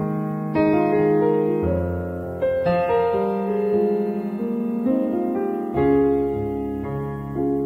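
Background piano music: slow, sustained chords, a new chord struck every second or two.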